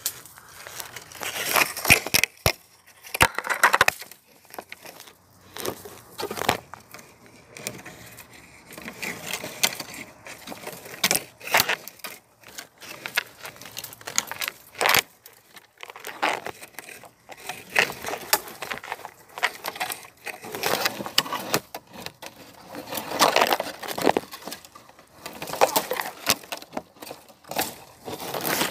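Irregular rustling and crackling of dry vegetation in uneven bursts, with scattered sharp clicks.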